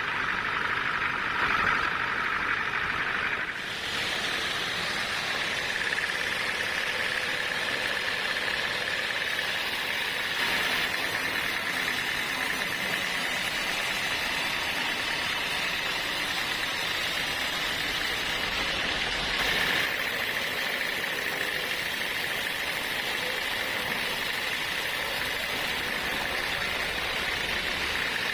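Machinery running steadily. Its sound changes about four seconds in and again around twenty seconds in.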